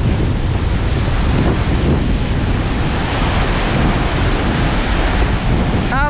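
Black Sea surf breaking and washing up a sandy beach in strong wind, the wind buffeting the microphone with a heavy rumble. The hiss of the wash swells about halfway through.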